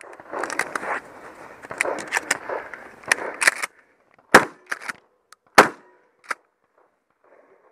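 Mossberg 590 pump-action shotgun fired twice, about a second and a quarter apart, with smaller clacks after each shot that fit the pump being worked. Before the shots, a few seconds of rustling and clicking handling noise.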